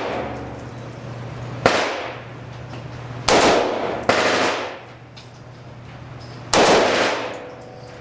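M4 carbine firing short bursts of fully automatic fire, about four bursts a second or two apart, each lasting well under a second, with the shots ringing on after each burst.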